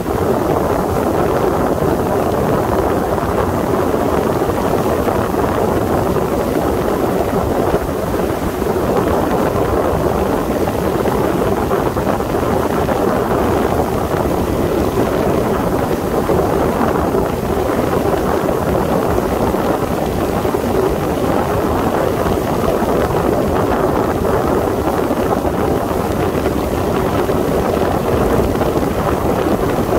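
Sea Ray motorboat under way at a steady speed: engine noise mixed with rushing water and wind buffeting the microphone, unchanging throughout.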